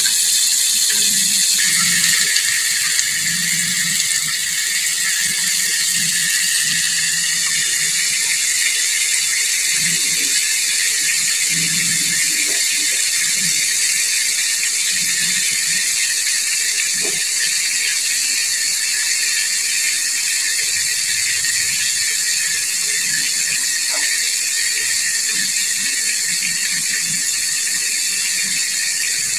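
Whole chicken deep-frying in hot oil in a small pot: a steady, loud sizzle with a few faint pops.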